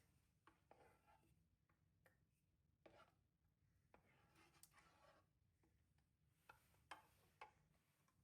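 Faint scattered clicks, taps and short rustles of small objects being handled, otherwise near silence.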